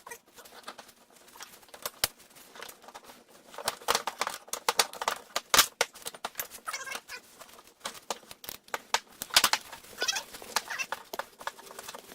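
Irregular clicks, taps and knocks of hand tools such as pliers working on metal front steering and suspension parts, with a few short squeaky sounds between them.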